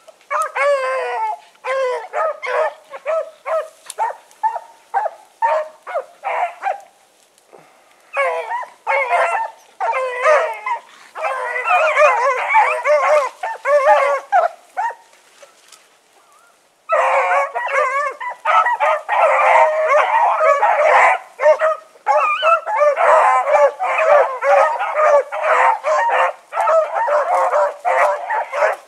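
A pack of rabbit dogs baying together while running a rabbit's track: many short, overlapping yelping bays. They fall away for a couple of seconds about halfway through, then break out loudly again.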